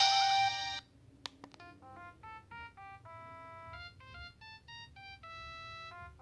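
LG TM125 mobile phone playing its built-in ringtones through its loudspeaker. A loud ringtone cuts off under a second in, two sharp clicks follow, and then a quieter melody of single held notes begins.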